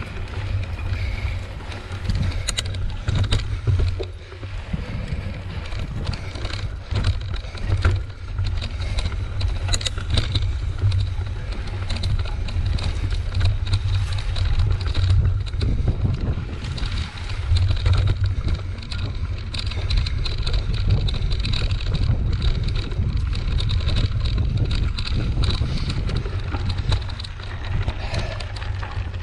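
Mountain bike rolling over a rough grassy trail, heard from a camera mounted on the bike: a continuous low rumble with wind buffeting on the microphone, and frequent small clicks and knocks from the bike rattling over bumps.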